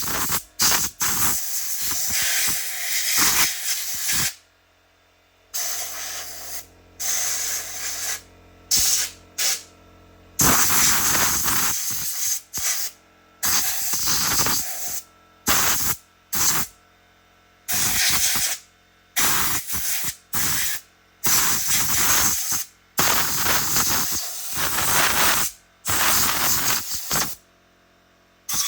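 Pressurised spray hissing in over a dozen stop-start bursts, some a fraction of a second and some up to about four seconds long, used to clean a chainsaw.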